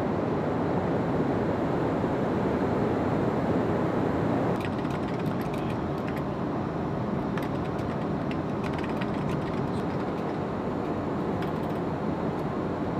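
Steady cabin noise inside an E-4B aircraft. From about four and a half seconds in, it is overlaid with quick, irregular clicking of keys being typed on a keyboard.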